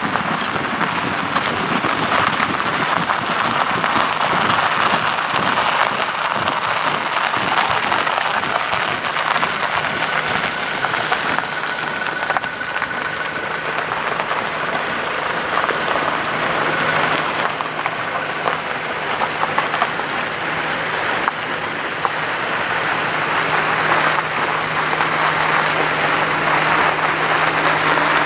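Many soldiers' boots tramping and crunching on packed snow as a marching column passes, a dense, even crackle. About halfway through, a faint steady vehicle engine hum joins in and grows stronger near the end.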